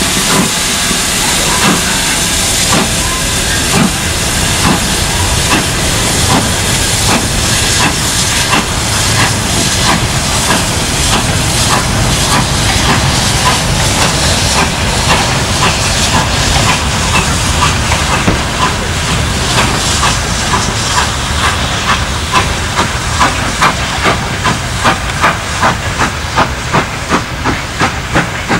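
GWR Hall-class steam locomotive 4953 Pitchford Hall starting a goods train away: loud steam hiss with exhaust chuffs. The chuffs grow into a clear, steady beat of about two to three a second near the end.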